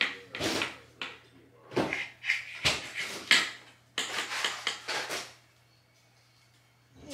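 Clinks, knocks and scrapes of dishes and utensils in several short clusters, stopping about five seconds in.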